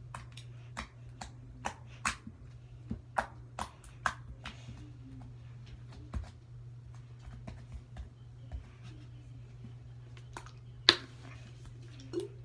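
Homemade glue slime being squeezed and stretched by hand, making a run of sharp wet pops and clicks, several a second at first, then sparser, with one loud pop near the end, over a steady low hum.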